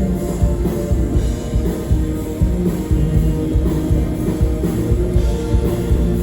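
Rock band playing live, loud and dense, with drum kit and guitar.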